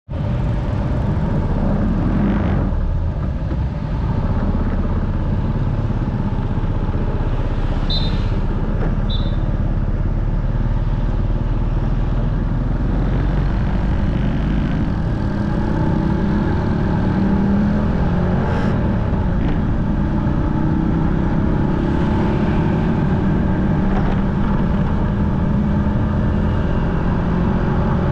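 Motorcycle engine running on the move, with heavy wind rumble on the action camera's microphone. The engine pitch climbs gradually in the second half. Two short high beeps sound about eight seconds in.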